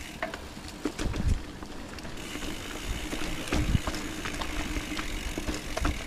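Mountain bike riding along a dirt trail: rumbling tyres with scattered clicks and rattles from the bike going over bumps, and two heavier low thumps, one about a second in and one past the middle.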